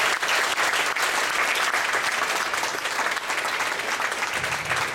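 A roomful of people applauding, a steady round of clapping for the speakers.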